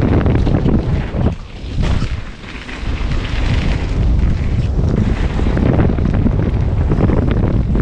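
Wind buffeting the microphone of a camera on a mountain bike descending a dirt trail at speed, with short clicks and rattles from the bike through it. The noise drops away briefly about a second and a half in, then comes back.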